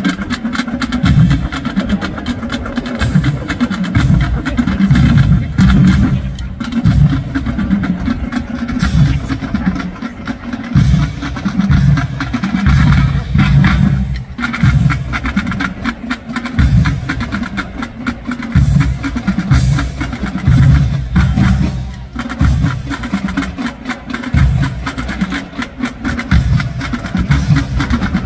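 Marching band drumline of snare, tenor and bass drums playing a marching cadence with a steady, driving beat.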